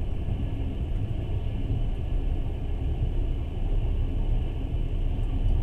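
Steady low rumble of a moving passenger train, heard from on board.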